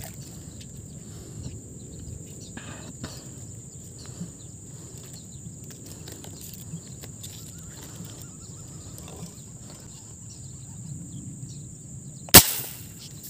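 Steady high drone of insects, then about twelve seconds in a single sharp, loud gunshot.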